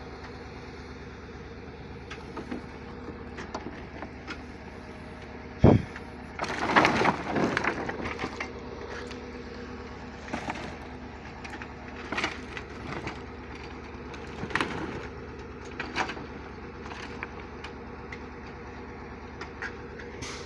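An engine running steadily, with scattered knocks and clatter. A sharp thump about six seconds in is followed by a couple of seconds of crunching and rattling, then more occasional knocks.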